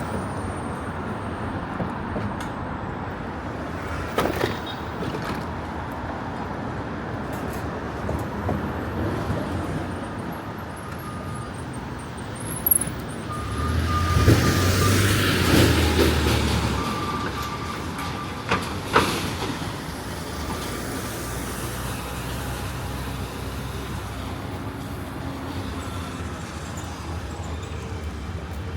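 Street traffic: a steady wash of passing vehicles. A louder vehicle goes by about halfway through with a low rumble, and a few sharp knocks sound along the way.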